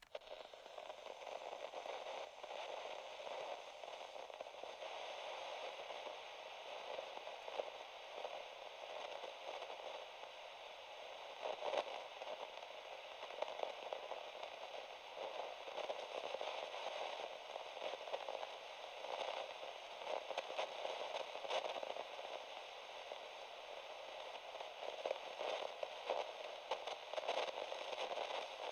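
Radio static: a steady band of hiss in the mid and upper range, filled with irregular crackles and pops, like a radio tuned between stations.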